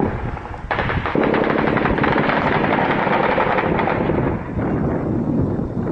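Heavy automatic gunfire: rapid, closely packed shots, many a second. It picks up strongly less than a second in and eases slightly after about four seconds.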